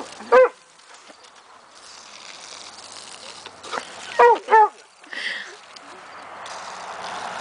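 A German shorthaired pointer puppy barking in two quick pairs of short, high yips, one pair at the start and another about four seconds in. Under them is the hiss of water spraying from a garden hose.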